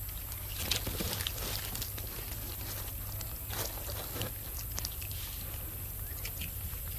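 Monkeys eating, with scattered short crunches and clicks over a steady low rumble.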